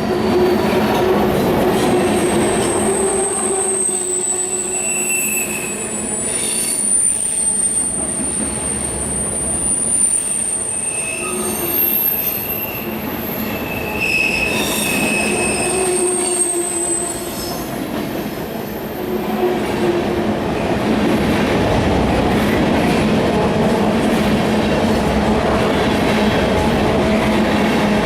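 Freight train rolling past, its wheels squealing on and off in thin high tones over the clatter and rumble of the cars. The squeals fade out and the rolling rumble grows louder past the middle.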